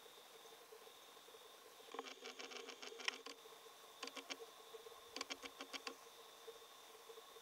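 Very faint recording: a steady thin whine with three short runs of rapid light clicking, about two, four and five seconds in.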